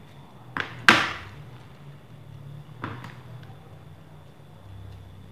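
Scissors snipping through a folded thin plastic bag: two sharp snips a little under a second in, the second one the loudest, then another fainter snip near three seconds.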